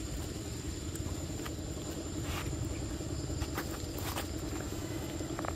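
Young macaque biting and chewing a ripe mango: a few brief soft clicks and crunches, irregularly spaced, over a steady low rumble and a thin steady high tone.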